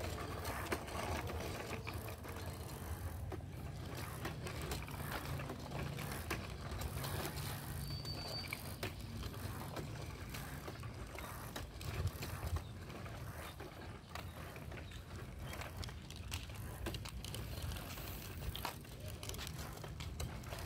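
Bicycle being ridden: a steady low rumble of tyres rolling on pavement, with scattered light clicks from the freewheel ratchet and chain.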